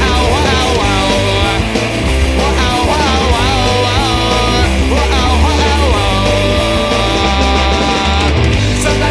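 A loud rock song with a sung melody over a steady bass line and drums.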